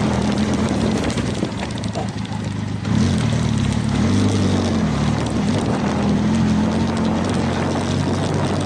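Benelli TRK 502X's 500 cc parallel-twin engine running at low speed, the throttle eased off about two seconds in and opened again about a second later, its pitch then rising and falling. Wind noise on the microphone underneath.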